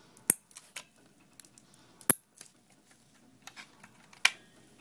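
Intel stock CPU cooler's plastic push-pin fasteners snapping into the motherboard holes: three sharp clicks about two seconds apart, with faint handling ticks between.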